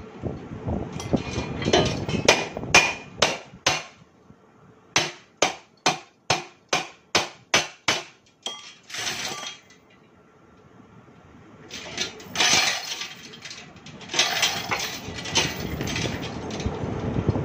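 Hand hammer striking steel while a screw-conveyor flight is shaped: sharp, ringing metal blows, with an even run of about three a second in the middle. Denser, rougher metal clatter follows in the last few seconds.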